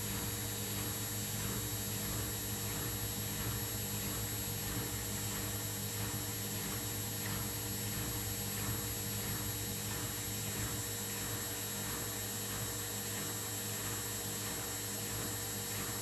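Candy Aquamatic 1000T compact washing machine spinning its empty drum during a descaling wash: a steady motor hum, with a faint swish repeating about twice a second.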